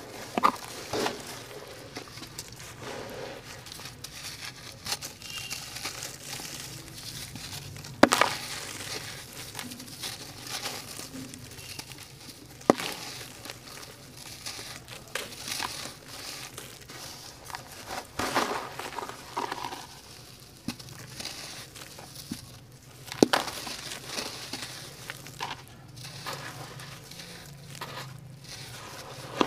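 Hands crushing and crumbling water-soaked sand-cement lumps: a continuous wet, gritty crunching and crackling, with a few sharp cracks about eight, thirteen and twenty-three seconds in.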